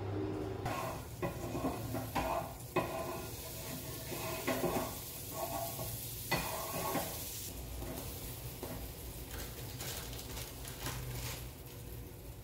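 Butter sizzling in a hot non-stick frying pan on a gas burner while a wooden spatula scrapes and spreads it around in short strokes. Later the sizzle grows brighter as slices of bread are laid into the melted butter.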